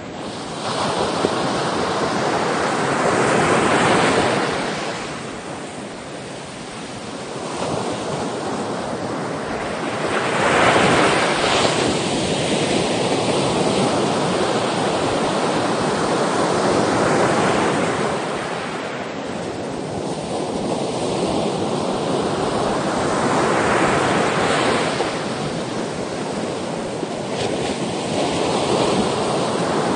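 Ocean waves breaking on a shore, the surf swelling and ebbing every several seconds with no pause between waves. Some wind noise on the microphone.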